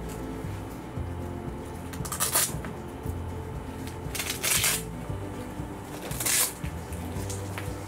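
Soft background music, with three short rustles as a cat harness and leash are handled on the cat.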